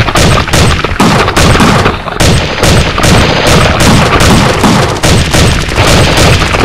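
Sharp knocks, roughly two a second, from Nerf blasters firing and the hand-held camera being jostled. Heavy, very loud rumble from handling runs underneath.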